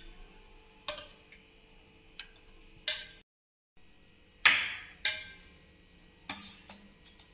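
Steel ladle and spoons clinking against a steel pot and serving bowls as custard is ladled out: about seven short, separate clinks and knocks. The sound cuts out briefly a little after three seconds in.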